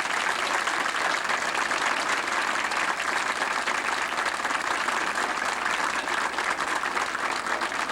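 Stadium crowd applauding and cheering steadily, in response to a placement being announced at an awards ceremony.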